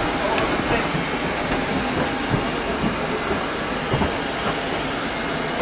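Steady rushing hiss of jet airliner noise, with a few faint knocks along the way.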